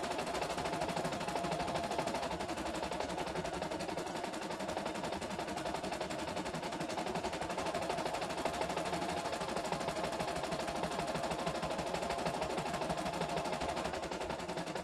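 CNY E960 computerised embroidery machine stitching a design: a rapid, steady clatter of needle strokes.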